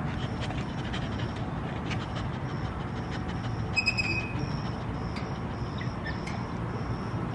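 Steady low rumbling background noise, with a brief high squeak about four seconds in.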